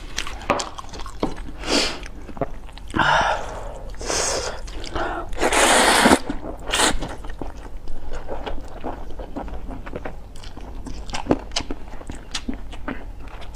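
A person eating glass noodles close to the microphone: a few long slurps, the loudest and longest a little past the middle, between many short wet chewing and lip-smacking clicks.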